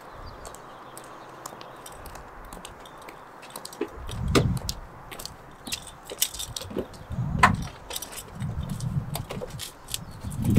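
Car keys jingling and a car door being opened as someone gets in, with several dull thumps and sharp clicks.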